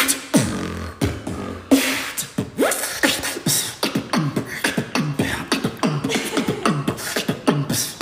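A man beatboxing a dance beat: deep kick sounds that drop quickly in pitch, with sharp snare and hi-hat hits between them, the beat getting busier about halfway through.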